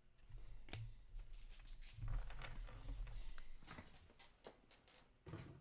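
Trading cards being handled and put down on a table: a few light clicks and taps, with a soft low thud about two seconds in.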